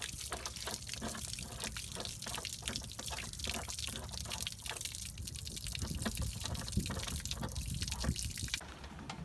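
Water splashing and spattering in rapid irregular bursts over a steady low rumble from the Yamaha 242 jet boat's running engine; the splashing thins out abruptly near the end.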